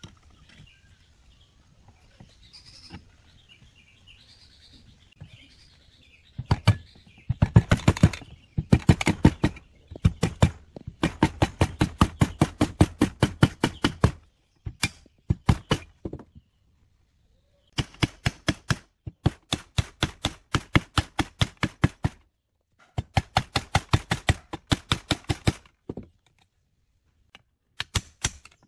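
A hammer tapping the two halves of a two-stroke chainsaw's crankcase together over the crankshaft, in runs of quick sharp strikes about four or five a second with short pauses between runs.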